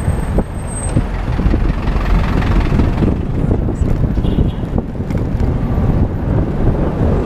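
City street traffic noise mixed with wind rushing over the microphone of a GoPro riding on a moving bicycle, a continuous, uneven rumble.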